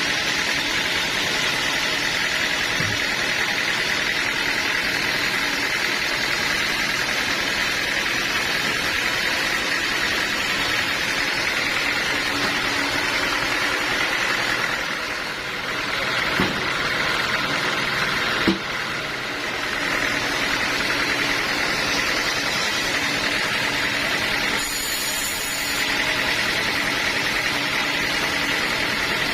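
Sawmill machinery running steadily, with two short sharp knocks a couple of seconds apart past the middle.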